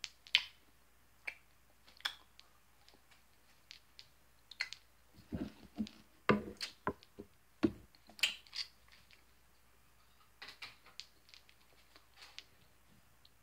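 Handling noise from a plastic-sleeved freezer pop: scattered soft clicks and short crinkling rustles, busiest in the middle.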